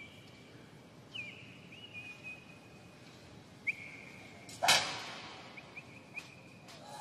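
Short, high, bird-like whistled chirps with small upward pitch flicks, repeating throughout, and one loud sharp crash about two-thirds of the way in that rings on and echoes for about a second.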